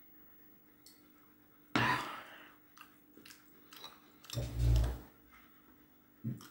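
Close-up mouth sounds of a person chewing and breathing after a sip of soft drink, with scattered small clicks and a dull thump a little past the middle.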